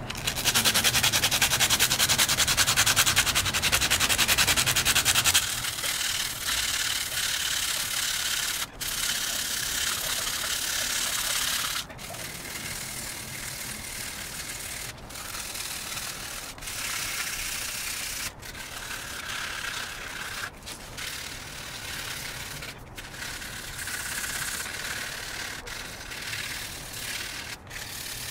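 80-grit sandpaper rubbed by hand over the scratched edge of an alloy wheel rim, sanding down deep curb-rash scratches. Quick back-and-forth strokes, loudest for the first five seconds, then softer scrubbing with short pauses between strokes.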